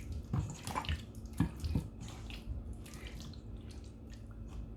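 Chicken drumsticks being mixed in a thick yogurt and spice marinade: irregular wet smacks and slaps, busiest in the first two seconds, then softer, over a faint steady hum.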